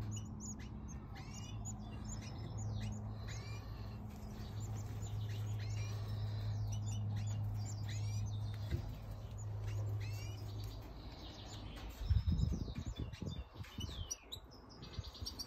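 Goldfinches chirping and twittering, many quick short calls throughout, over a steady low hum that stops about eleven seconds in. Near the end come a few low thumps and rumbles.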